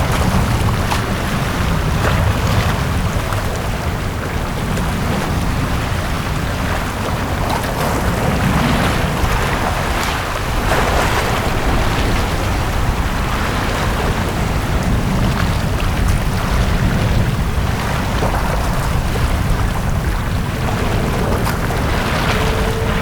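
Small sea waves washing onto a beach, the wash swelling every few seconds over a steady low rumble. A faint rising hum comes in near the end.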